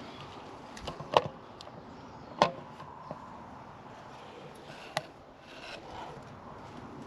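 Footsteps through overgrown debris, with about three sharp snaps or cracks spread over several seconds, as of dry wood breaking underfoot.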